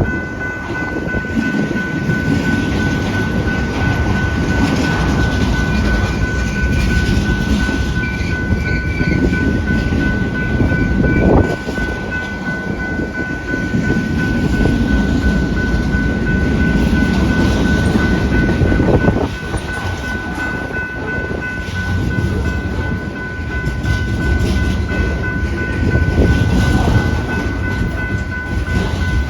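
Freight train cars rolling past with a steady rumble of steel wheels on the rails, with a thin steady whine above it. Gusts of wind buffet the microphone.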